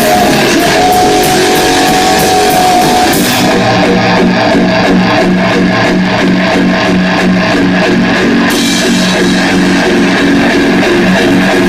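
Rock band playing live: electric guitars, bass and drum kit. About three seconds in, the cymbals drop out for roughly five seconds, leaving guitars, bass and drums, then come back in.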